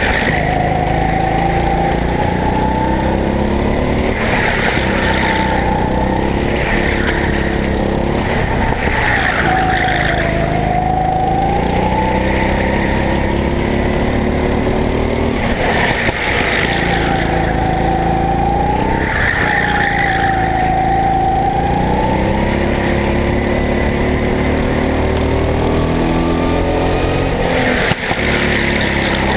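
Go-kart engine running hard, its pitch dipping and climbing over and over as the kart slows for and powers out of corners, with short bursts of tyre squeal in the turns.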